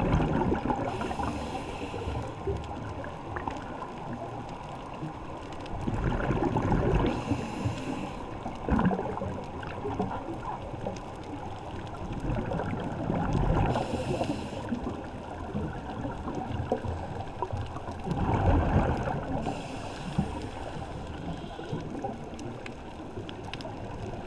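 Scuba diver breathing through a regulator, heard underwater through the camera housing: a hiss on each inhalation and a rush of bubbles on each exhalation, repeating about every six seconds.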